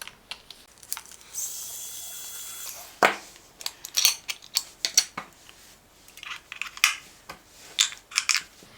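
Small clicks and knocks of a handheld digital multimeter's plastic battery cover being unscrewed and AAA batteries being fitted. There is a brief steady whir about a second and a half in.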